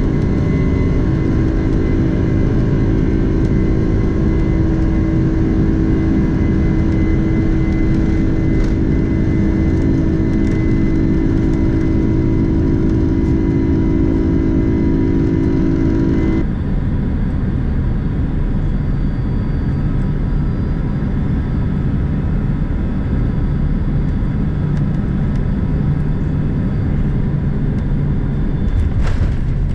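Steady, loud rumble of a vehicle in motion, with a few steady tones over it. Just past halfway the sound changes abruptly and the tones drop out.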